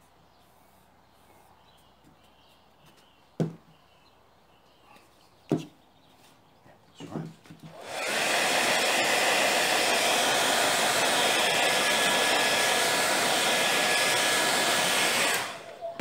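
A hair dryer is switched on about eight seconds in and blows steadily for about seven seconds before cutting off, most likely drying the fresh paint. Before it come two sharp knocks a couple of seconds apart.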